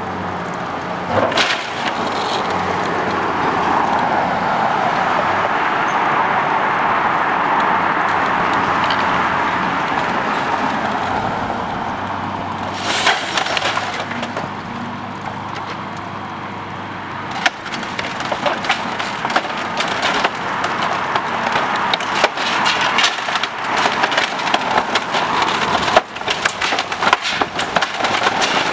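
A wood-frame building being torn apart by a demolition machine's bucket, over the steady noise of the machine. A few sharp wooden cracks come in the first half. From about two-thirds of the way in, timbers crack and splinter almost continuously as the structure gives way.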